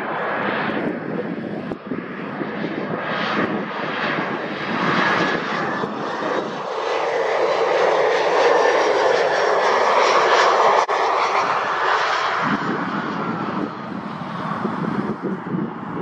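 Turbofan engines of a KLM Cityhopper Embraer 175 landing jet passing low overhead on final approach, growing louder to a peak a little past the middle, then falling away.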